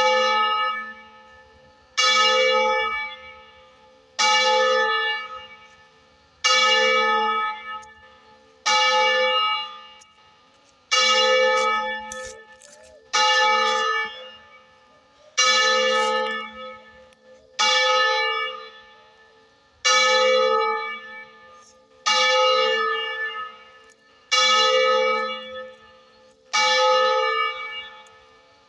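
A church tower bell, one of three cast in 1926, tolling single strokes at an even pace, about one every two seconds. Each stroke starts sharply and rings down before the next, always at the same pitch.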